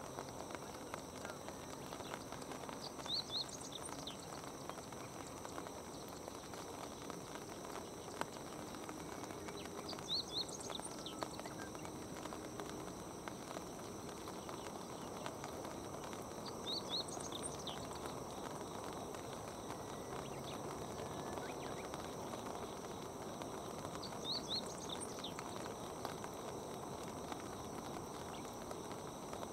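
A small bird's high, quick call of a few notes, repeated four times about every seven seconds, over a steady outdoor background hiss.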